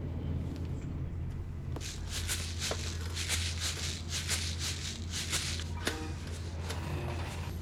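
A steady low hum, with a run of close rustling and clicking from about two seconds in to about six seconds: sliced bread and a plastic container lid being handled and the bread put into a pop-up toaster.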